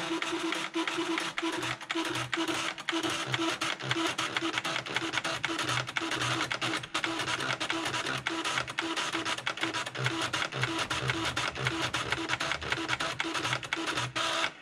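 Panasonic Penwriter's ballpoint pen-plotter mechanism writing out typed text: a busy run of fast clicks and motor buzz from the pen carriage, with a pulse about three to four times a second. It stops suddenly at the end.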